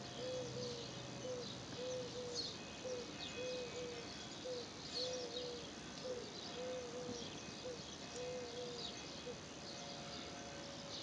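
Outdoor nature ambience: scattered high bird chirps over a steady hiss, with a repeated short, low two-note call about once a second that stops about nine seconds in.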